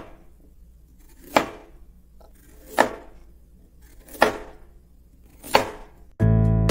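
Countdown intro sound effect: five sharp hits about a second and a half apart, some with a short swell before them. Guitar music starts near the end.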